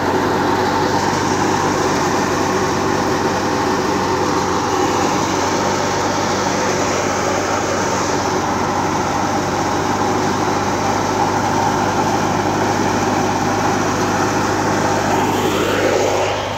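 Tractor-driven wheat thresher running steadily: a steady engine hum under a loud, even rushing noise from the threshing.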